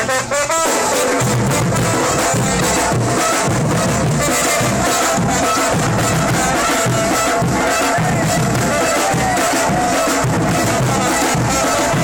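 Loud music with a steady beat and a held melody line; it drops out for a moment just after the start.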